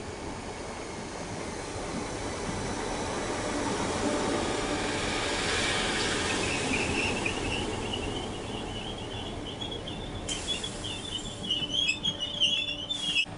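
Merseyrail electric multiple unit running into a station platform, its wheels rumbling on the rails as it passes close by. From about halfway a high, wavering squeal sets in and grows louder as the train brakes to a stop.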